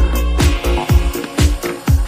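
Background music with a steady drum beat, about two hits a second.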